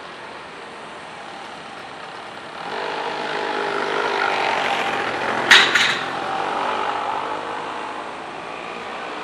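A vehicle passing close by, swelling from about two and a half seconds in and fading near the end, with a brief sharp clatter at its loudest point.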